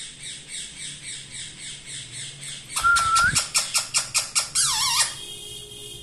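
Rose-ringed (Indian ringneck) parakeet calling. Quieter repeated chirps give way, about three seconds in, to a loud clear whistle and a fast run of sharp squawks, about six a second. A warbling trill ends the calls about five seconds in.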